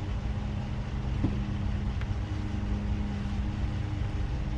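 Ram pickup truck's engine idling steadily with an even low hum.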